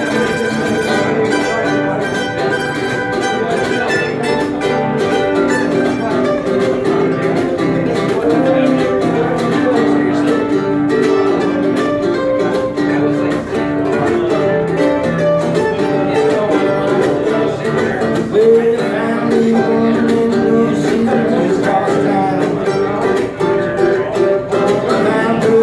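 Live acoustic string instrumental: a mandolin picking a quick melody over a second plucked string instrument, with no singing.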